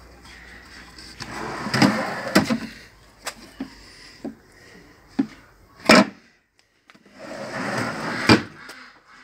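Film-faced birch plywood drawers in a small van's built-in cabinet sliding out and back in, wood rubbing on wood, each stroke ending in a knock against its stop. Smaller taps and clicks of wood come between the slides, and the sharpest knock comes about six seconds in.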